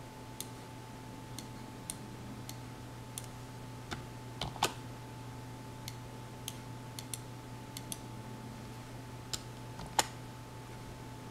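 Slow, irregular keystrokes on a computer keyboard, about one or two a second, with a couple of louder clicks about four and a half and ten seconds in, over a steady low hum.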